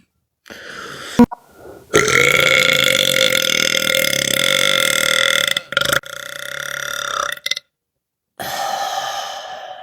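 A person belching deliberately: one long, loud belch held at a steady pitch for about three and a half seconds, starting about two seconds in, followed by two shorter belches.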